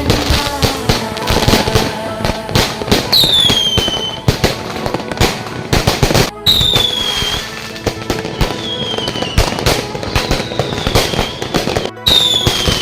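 Fireworks going off in a dense run of bangs and crackles, with about five short whistles falling in pitch scattered through it.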